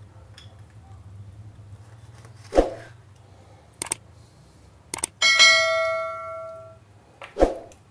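A single bell-like ding with a ringing tail that fades over about a second and a half, led in by short clicks: the sound effect of an animated subscribe-and-bell button. Two dull knocks, one before and one after it.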